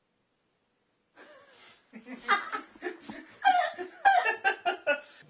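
A woman and a man laughing in choppy bursts, starting about a second in after a moment of silence.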